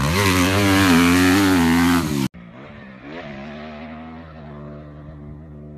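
Dirt bike engine revving loudly up close, its pitch rising and falling with the throttle. It cuts off suddenly about two seconds in, and a quieter, steadier dirt bike engine runs on.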